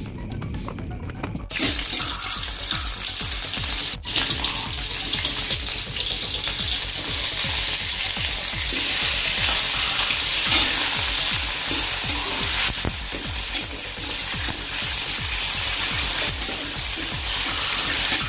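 Sliced shallots, garlic and chilies sizzling as they fry in hot oil in a wok, with a spatula stirring them. The sizzle starts abruptly about a second and a half in and runs on as a steady hiss.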